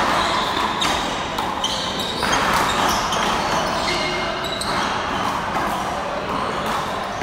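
Rubber handball smacked by hand and bouncing off the wall and floor during a rally, a series of sharp hits at uneven intervals.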